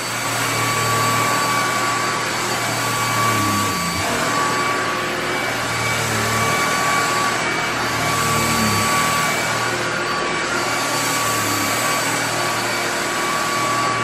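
Lubluelu 202 cordless stick vacuum running on its maximum setting, a steady rush of air with a high motor whine, as its motorised brush head is pushed back and forth over a rug.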